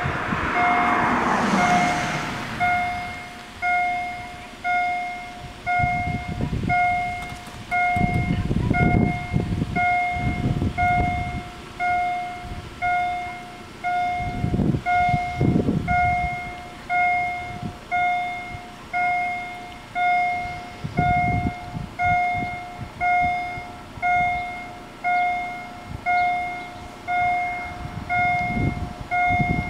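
Level-crossing warning bells ringing steadily, about one strike a second, each stroke on the same tone and dying away before the next: the crossing's alarm for an approaching train while the barriers come down. Occasional low rumbles sit underneath.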